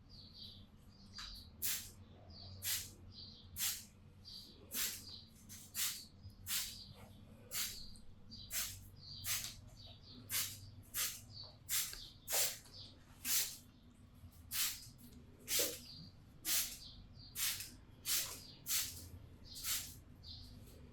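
Rhythmic swishing strokes on hair, about one a second: the masseur's hands rubbing and scrubbing the client's hair and scalp during a head massage.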